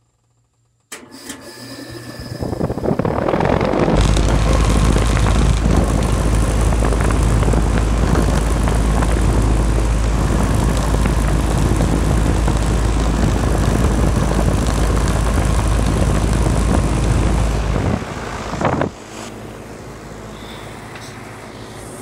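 A 1993 Janitrol 3.5-ton heat pump starting up in cool mode. A sudden clunk about a second in is followed by the compressor, which the owner guesses is a Copeland reciprocating, and the condenser fan building up over the next few seconds to a loud steady run with a heavy low rumble. Near the end there is a brief knock and the sound drops to a quieter, steady run.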